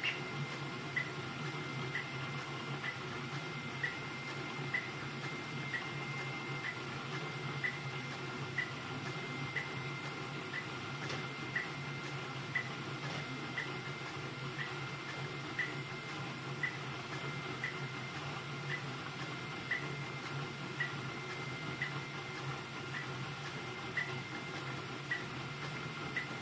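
Ender-3 V3 3D printer running a fast print: a steady mechanical hum with a high whine, and a brief chirp about once a second.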